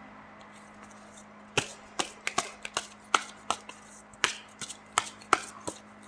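A run of short, sharp clicks at irregular spacing, two or three a second, beginning about one and a half seconds in, over a faint steady hum.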